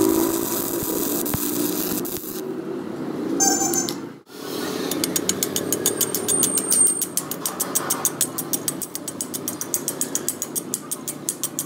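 Stick-welding arc crackling for about two seconds, then stopping. After a short break comes a long run of rapid, even metallic taps, about eight a second, as a flat steel piece is rapped along the fresh weld bead.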